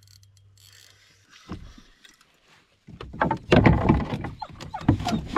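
A hooked smallmouth bass splashing and thrashing at the surface as it is brought in beside a canoe. After a faint start and a single knock, a loud run of splashes begins about three seconds in.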